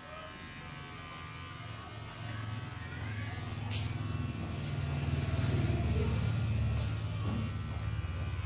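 A low, steady motor hum that grows louder over the first few seconds, with a few sharp clicks over it.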